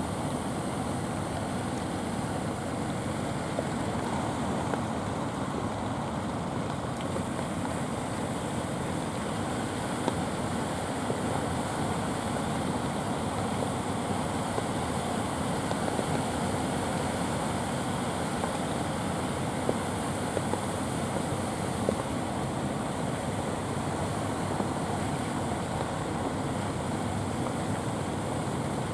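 Steady wash of breaking surf and wind on the microphone, with the low drone of outrigger fishing boats' engines beneath it.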